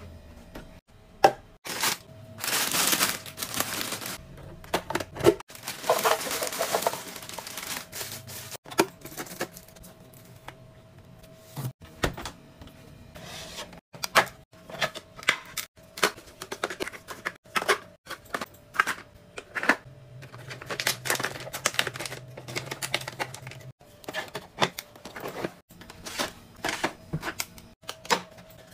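Storage containers and snack packets being handled: a steady string of clicks, taps and knocks as plastic baskets, jar and bamboo lids are picked up, opened and set down, with a couple of longer rustling stretches of wrapper packaging in the first several seconds.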